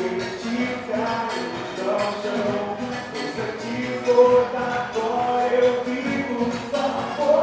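Band playing a worship song with singing and a steady beat.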